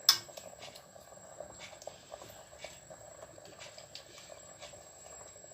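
A sharp knock right at the start, then faint, scattered small clicks and scrapes of kitchen utensils against cookware.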